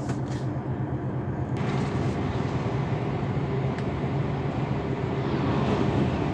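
A vehicle's engine drone and tyre noise while cruising on a highway, a steady low hum under a rushing road noise. The rush swells about five seconds in as an oncoming truck passes.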